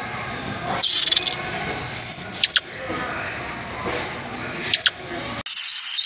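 Short, high-pitched animal chirps and squeaks over a forest background: a burst about a second in, a whistled chirp, then a few sharp squeaks, with the background changing near the end.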